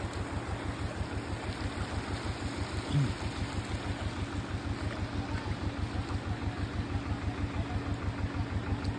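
A vehicle's engine running at low revs with a quick, even low chugging that stays steady throughout.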